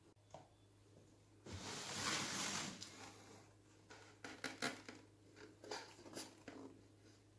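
Tableware being handled: a scraping hiss lasting about a second, then a run of light knocks and clinks as a wooden tray holding a mug and a glass bowl with a metal spoon is picked up.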